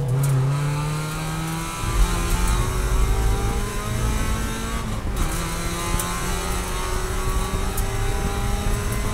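Spec Miata's four-cylinder engine pulling hard under race acceleration, heard from inside the car: the pitch climbs, drops at an upshift about five seconds in, then climbs again more slowly in the higher gear.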